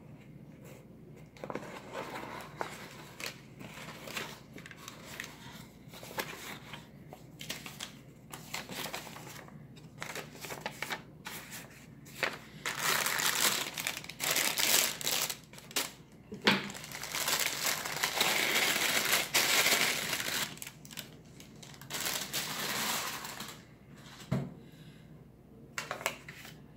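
Hands handling and opening a small cardboard box, with scattered scrapes and rustles, then from about halfway a clear plastic bag crinkling loudly for some ten seconds as a watch is unwrapped from it. Two dull knocks fall in the middle and near the end.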